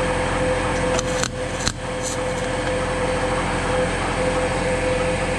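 MIG welder arc crackling steadily as a frame rail is welded to the car body, with a brief break and a couple of clicks a little over a second in. A steady hum runs underneath.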